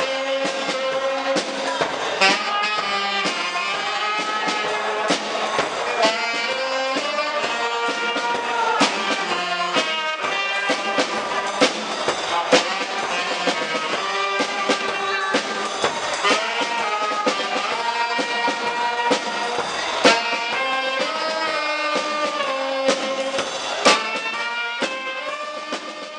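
Brass band music with saxophone: a lively tune of held horn notes over regular drum hits.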